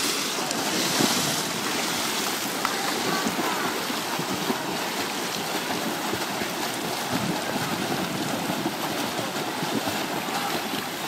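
A swimmer diving into a pool right at the start, then continuous splashing from swimmers' front-crawl arm strokes and kicks.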